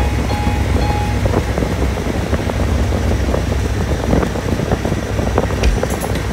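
Motorcycle riding along at road speed, recorded from the moving bike: wind rushing over the microphone on top of engine and road rumble.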